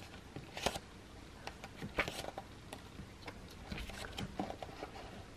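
Glossy photobook pages turned by hand: soft paper rustles and flicks, the loudest about two-thirds of a second and two seconds in.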